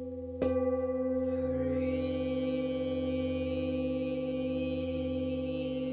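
Large brass singing bowl, already ringing, struck once about half a second in, then ringing on in steady low tones. A shimmer of higher overtones swells in about a second after the strike and holds.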